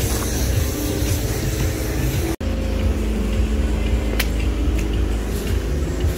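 Steady low rumble with faint steady tones above it; the sound drops out completely for an instant about two and a half seconds in.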